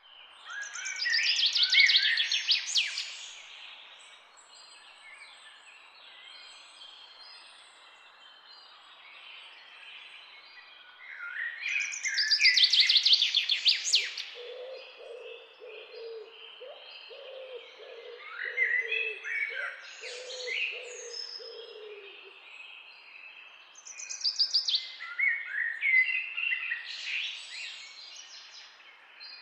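Songbird singing in loud, high phrases that open with a rapid trill, repeating about every ten to twelve seconds, with quieter calls in between. Through the middle, a run of short, low repeated notes from another bird.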